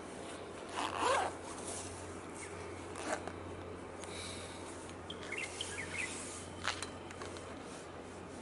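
Outdoor harbour ambience: a steady low hum with a brief rustle about a second in, a couple of sharp clicks, and a few faint chirps just after the middle.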